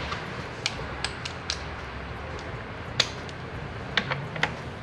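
Scattered sharp clicks and light knocks of hand tools and parts being handled, irregular and a few a second at most, the loudest about three seconds in, over a low steady hum.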